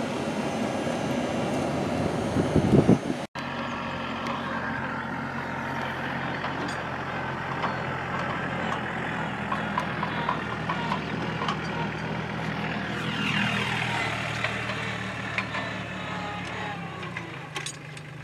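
An engine running steadily, with a whine that falls in pitch about two-thirds of the way through. It is preceded by rough noise and a loud rustle that cuts off suddenly a few seconds in.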